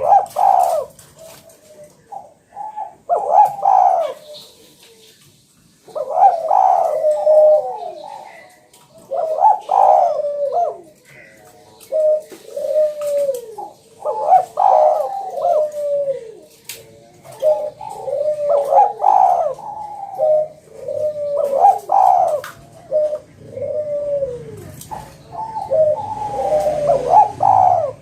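Spotted dove (tekukur) cooing over and over in phrases of short, falling coos, with a brief pause about four seconds in.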